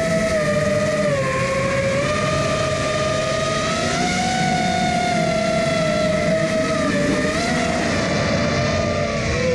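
FPV racing quadcopter's brushless motors and propellers whining steadily, the pitch following the throttle: it dips about a second in, rises around four seconds, and wavers near the end.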